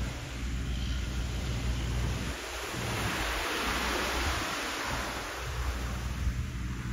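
Small waves breaking and washing up a pebble beach, one swelling louder about halfway through, with wind buffeting the microphone.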